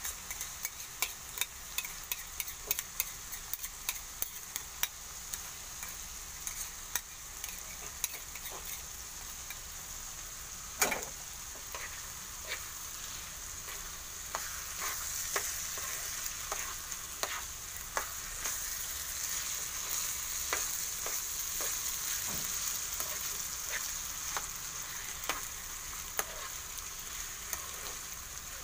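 Ground meat and diced vegetables sizzling in a frying pan while a utensil stirs them, with frequent clicks and scrapes of the utensil against the pan and one sharper knock about eleven seconds in. The sizzle grows louder from about halfway.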